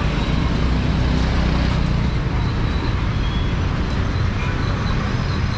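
Street traffic: motor vehicle engines running close by, a low rumble that is strongest in the first two seconds and eases after.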